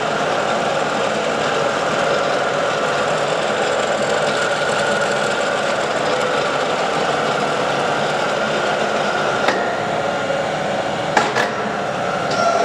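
Lodge & Shipley heavy-duty engine lathe running under power, its headstock gearing and spindle whirring steadily. A sharp click about three quarters of the way in and a couple more near the end.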